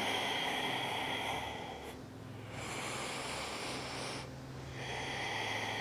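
A woman's slow, audible breathing during a held yoga balance: three long breaths, each about two seconds, with short pauses between.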